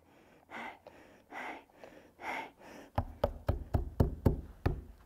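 A few soft breathy puffs, then a quick run of about nine knocks, roughly four a second: a small ball rapped against a tabletop.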